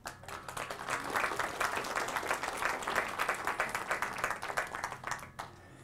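Audience applauding, the clapping building quickly and dying away about five seconds in.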